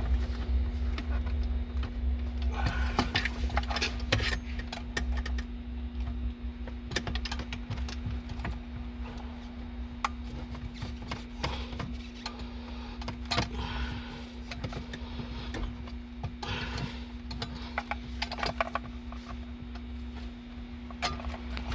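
Scattered plastic clicks, rattles and scraping as car electronic modules and their wiring connectors are handled and worked loose, over a steady low hum.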